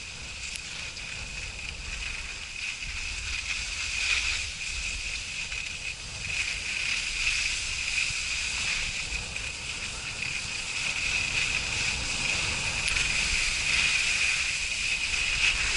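Skis hissing steadily as they slide over snow, with wind buffeting the camera's microphone as a low rumble that swells and fades.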